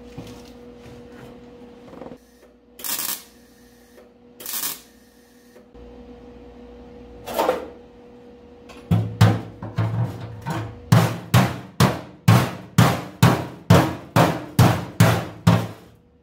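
MIG welder arc crackling in short bursts on thin sheet steel. A few separate bursts come first, then a quick, even run of about two to three bursts a second, which is stitch-welding to fill holes where the thin trunk-pan metal burned through before it welded.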